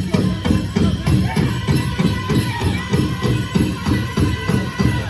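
Pow wow drum group pounding a fast, steady beat on a big drum, about four to five strokes a second, with a jingling of dance bells over it.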